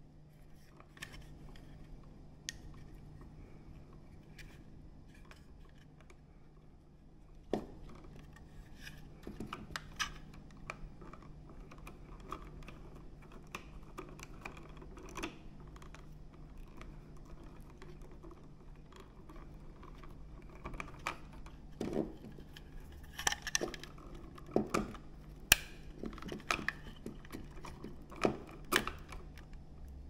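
Plastic wall switches and their wires being handled: scattered clicks and rattles of plastic and wire, few at first and busier in the second half.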